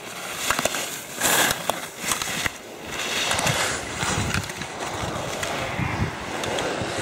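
Slalom skis scraping and carving on hard-packed snow as a racer turns through the gates. There are a few sharp clacks in the first couple of seconds and a loud scrape just over a second in, then a steadier scraping hiss from about halfway on.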